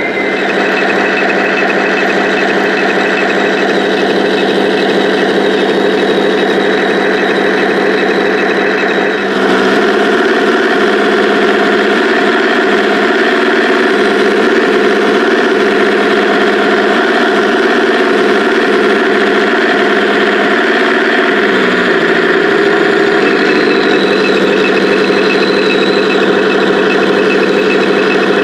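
Radio-controlled toy tank's sound unit playing a steady simulated tank engine. Its tone shifts about nine seconds in and again a little after twenty seconds.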